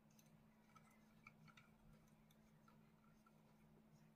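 Near silence, broken by a few faint, short plastic clicks from handling a ring light's phone-holder clamp.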